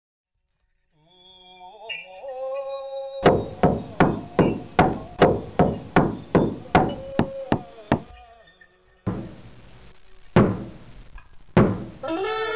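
Blacksmith's hammer striking metal on an anvil: a quick run of about a dozen ringing blows, roughly two and a half a second, then two slower single blows. A few seconds of musical tones come before the blows, and more music starts near the end.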